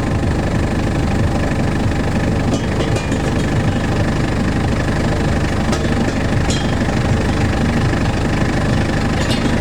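A heavy engine running steadily at a low, even drone, with a few faint clicks over it.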